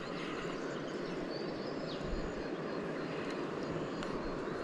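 Steady rushing of river water over rapids, with a few faint, short high chirps above it.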